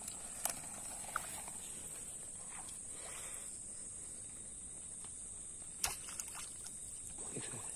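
Steady high-pitched insect chorus over faint shallow-water sloshing, with a few soft clicks and one sharp knock about six seconds in as a bamboo fish spear jabs into the shallow water.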